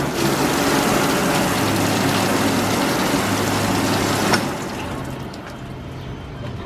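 Water running from a hand-washing station tap, a steady splashing rush that cuts off abruptly about four seconds in.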